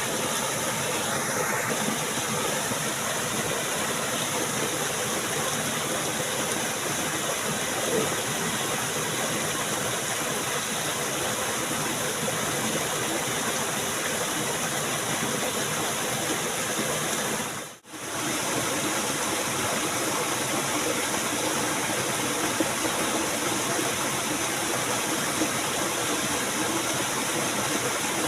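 Steady rush of flowing stream water, broken once by a sudden brief dropout about eighteen seconds in.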